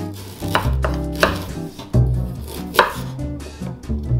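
Chef's knife slicing through fresh ginger root on a bamboo cutting board: several sharp knocks as the blade meets the board. Background music plays underneath.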